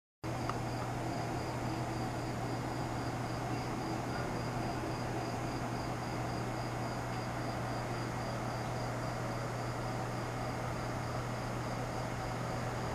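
Crickets chirping in a steady, even pulse over a constant low hum.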